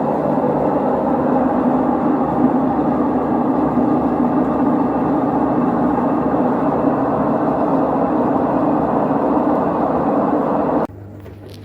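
LG direct-drive washing machine on its spin cycle, making a loud, steady mechanical noise, the abnormal noise the machine is being checked for. It cuts off suddenly near the end, leaving a faint low hum.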